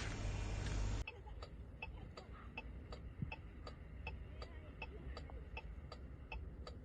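About a second of louder noise that cuts off abruptly, then faint, even ticking at about three ticks a second.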